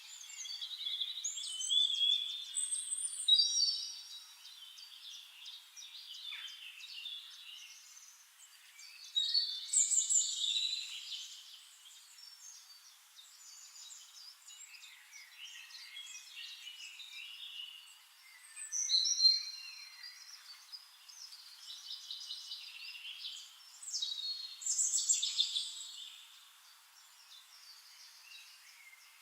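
Birds chirping and singing in quick, high-pitched trills, with four louder bouts of song a few seconds apart over steadier background chirping.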